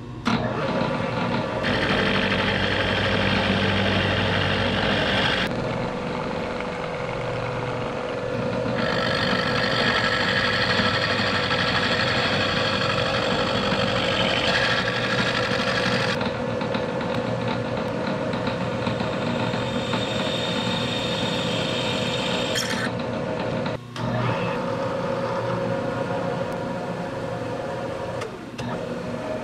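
Milling machine spindle running steadily while an end mill cuts cast aluminum, the cutting noise coming and going in stretches of several seconds. In the last few seconds the machine is drilling into the aluminum instead.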